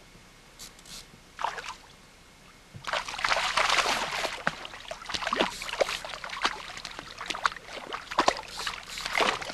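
Two hooked shad thrashing and splashing at the water's surface beside a small boat. There is one small splash about a second and a half in, then continuous heavy splashing from about three seconds in.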